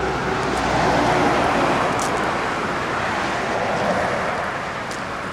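Road traffic: a vehicle passing, its rushing noise swelling about a second in and slowly fading away.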